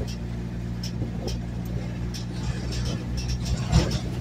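Car engine and road noise heard from inside the cabin while driving, a steady low drone with scattered light clicks and rattles, and a louder knock near the end.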